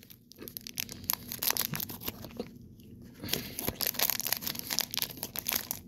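Crinkly plastic wrapper crackling and tearing as it is peeled by hand off a plug of chewing tobacco, in rapid crackles with a short pause about halfway.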